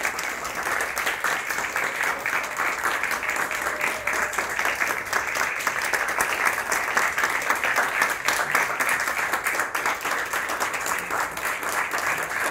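A room full of people applauding, continuous dense clapping with no break.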